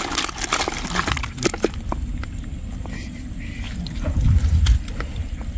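Live snakehead and climbing perch flapping and slapping wetly against each other in a plastic bucket. A quick run of clicks and splashes fills the first second and a half, then only the odd flick. A low rumble swells about four seconds in.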